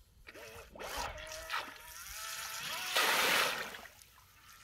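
Small electric RC water jet thruster run in short throttle bursts, its motor whining up and down in pitch while the jet churns and sprays the water; the loudest rush of water comes about three seconds in and dies away half a second later.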